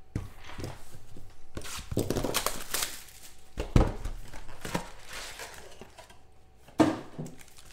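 A cardboard trading-card hobby box being opened and its foil-wrapped card packs pulled out: tearing, crinkling and rustling with small clicks, and two sharp knocks, one about four seconds in and one near the end.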